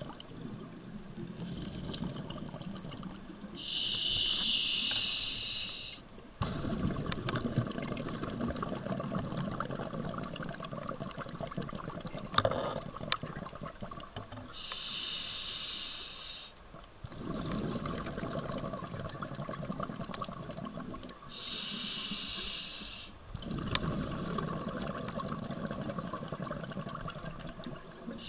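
Scuba diver breathing through a regulator underwater: three hissing inhalations of about two seconds each, each followed by several seconds of bubbling exhalation.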